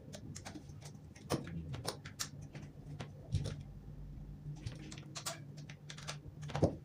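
Small brush scrubbing the inner side of a Wahl clipper's steel blade set: irregular scratchy strokes and clicks, the loudest a little over a second in, about three seconds in and near the end.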